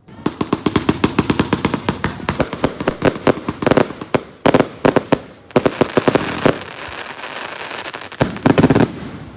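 Fireworks going off in a rapid crackling string of sharp bangs, many a second, starting suddenly, easing briefly twice in the middle and ending with a loud cluster before dying away.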